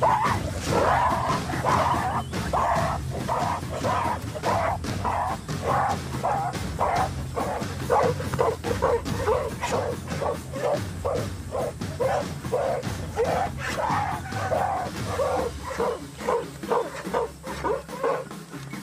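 Gorillas calling in a long run of short calls, about two a second, each a little different in pitch.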